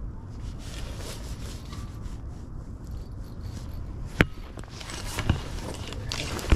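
A landing net being handled in a boat: a sharp knock about four seconds in, another a second later, then rubbing and more knocks near the end, over a steady low rumble.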